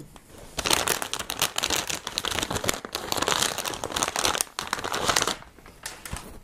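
Plastic anti-static bag crinkling as a graphics card is pulled out of it. It runs from about half a second in to about five seconds, followed by a few light knocks near the end.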